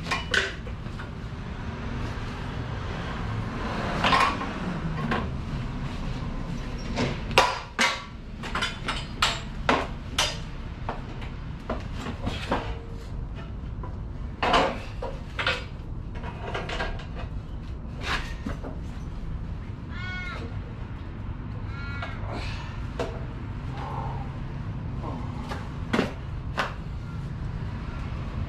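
Irregular metallic clanks, knocks and scrapes of heavy generator parts being handled and shifted on the frame, some ringing briefly, with a few short squeaks about two-thirds of the way through.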